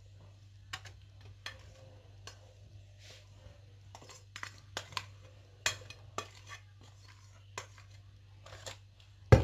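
Light, irregular clicks and scrapes against a mixing bowl as marinade is scraped out of it over chicken pieces, with one loud knock near the end. A faint steady low hum runs underneath.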